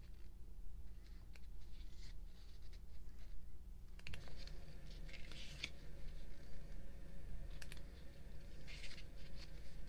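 Photobook pages being turned and handled: scattered light clicks and short paper rustles, the loudest about halfway through and again near the end.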